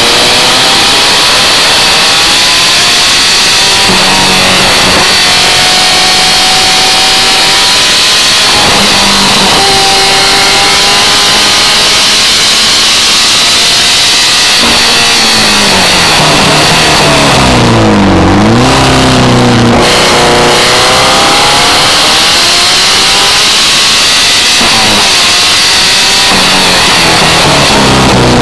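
Birkin S3 sports car engine driven hard on track, its pitch climbing again and again with short drops between. Past the middle it falls to a low pitch, then climbs back up. A steady rushing hiss runs under it throughout.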